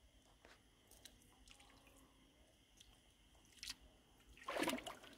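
A fishing magnet on its rope being hauled through shallow lake water onto the shore: faint small drips and splashes, then a louder splashing scrape near the end as it comes out onto the gravel.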